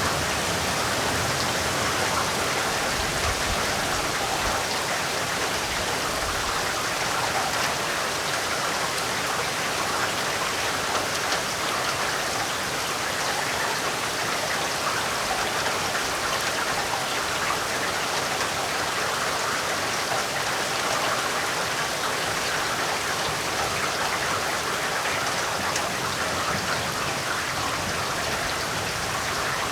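Heavy rain falling steadily: a dense, even wash of drops with no let-up or change.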